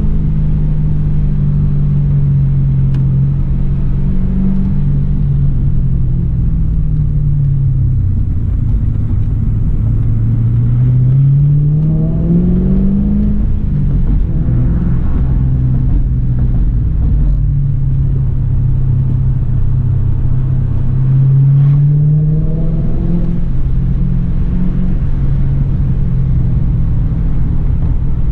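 Ford FPV GT Falcon's 5.4-litre V8 engine running under load, heard from inside the cabin with road and tyre noise. The engine pitch climbs as it accelerates about twelve seconds in and again about twenty-two seconds in, dropping back sharply after each climb.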